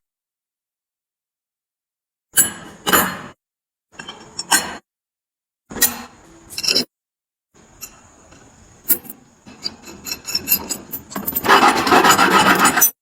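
Hand scraping on a metal piece being restored: three short bursts of strokes, then a longer spell of quicker, louder strokes near the end that cuts off suddenly.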